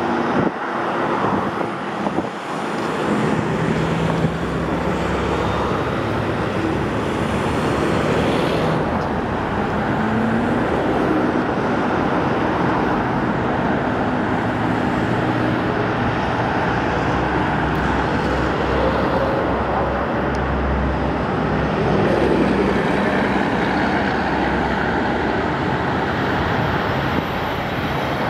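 Steady highway traffic noise: cars and trucks running past on the road, with engine tones now and then rising above the tyre noise.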